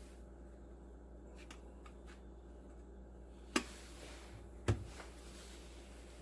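Two sharp knocks about a second apart, the second with a dull thud under it, over a low steady hum and faint light ticks.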